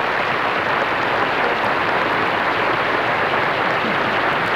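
Studio audience applauding, a steady dense clatter of many hands.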